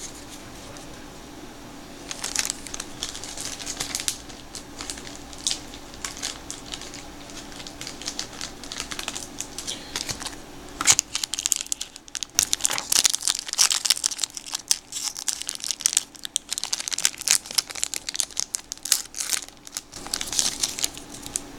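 A foil trading-card wax pack crinkling as it is opened and the stack of cards is slid out of the wrapper. Irregular crackles come and go, busiest in the second half.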